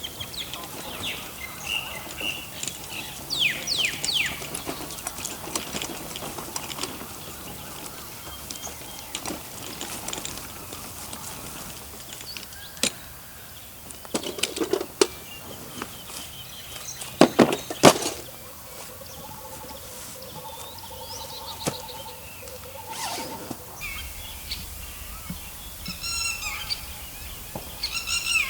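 Birds calling and chirping, with quick falling whistles and repeated short notes. A few sharp knocks and clatters come about halfway through, the loudest a pair of knocks near the two-thirds mark.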